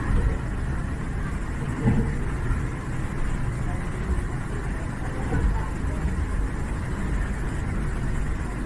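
Cabin noise of a Bombardier Innovia Monorail 300 train running between stations: a steady rumble from its rubber tyres on the concrete guideway beam, with faint steady tones above it.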